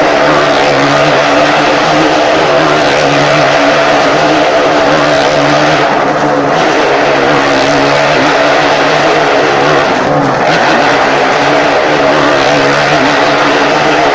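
Motorcycle engine running at steady high revs as the bike circles the vertical wooden wall of a wall-of-death drum, the sound dipping briefly about every four seconds.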